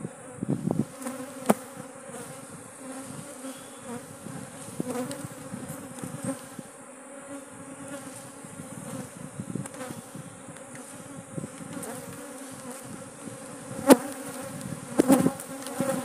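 A mass of honeybees buzzing around an opened hive, a steady low hum from an aggressive, stinging colony. A few sharp knocks stand out near the start and, loudest, near the end.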